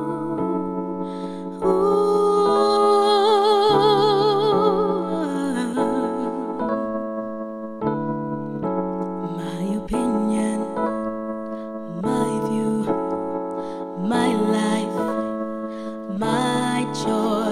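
Slow gospel ballad: a woman singing with a wide, wavering vibrato over held electric-piano chords from a Yamaha Motif XS7 keyboard, the chords changing every second or two.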